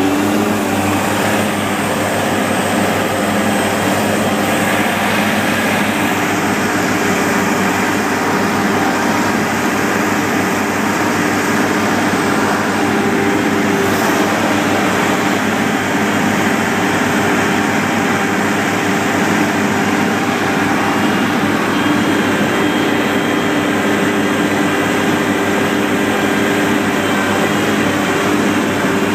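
Asphalt paver's diesel engine running steadily under working load: a loud, even drone with a constant hum.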